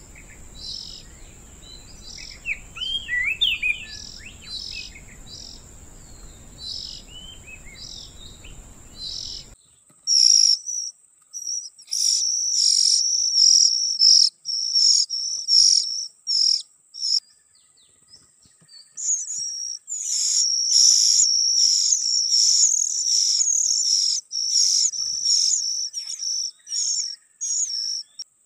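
Oriental magpie-robin (kacer) adult and chick calling at feeding: series of short, high, repeated chirps with a few gliding whistled notes early on. About a third of the way in, the background hiss cuts out and the chirping becomes louder and more rapid. A steady, high, cricket-like whine runs underneath.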